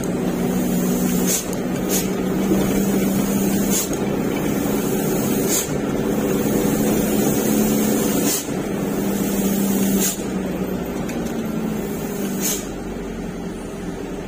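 Truck engine running steadily as the truck drives, with short sharp clicks or knocks every second or two, and a slight drop in loudness near the end.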